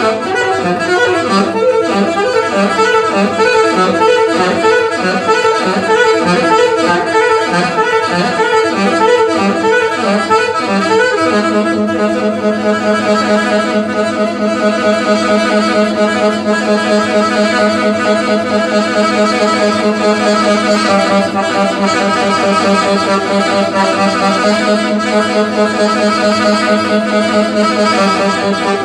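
A band playing an instrumental passage with no singing. A pulsing, repeating figure gives way about eleven seconds in to long held notes.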